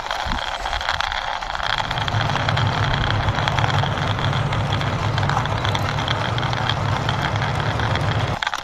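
Toy military tanker truck pushed along by hand, its wheels rolling with a steady noisy rumble that deepens about two seconds in and stops just before the end.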